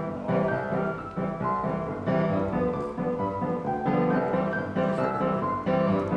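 Piano played four hands by a child and an adult: a simple tune over chords in an even rhythm.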